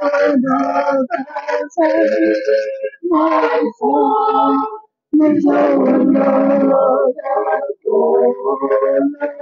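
Mixed choir of men's and women's voices singing a gospel song in phrases, with a brief pause about five seconds in.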